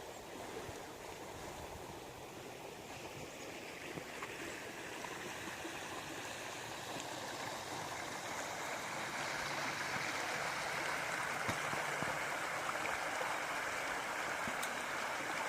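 Small creek rapids running through a narrow channel of open water between ice, a steady rushing and gurgling that grows gradually louder over the second half.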